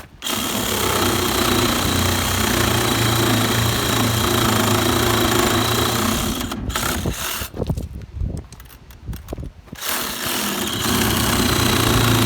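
Power saw cutting rough-cut lumber rafters, running steadily, then stopping and starting in short bursts for a few seconds before running steadily again.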